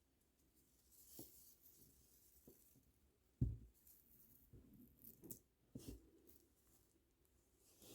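Faint handling sounds of hands working plastic kandi beads: light rustles and small clicks, with one soft knock about three and a half seconds in.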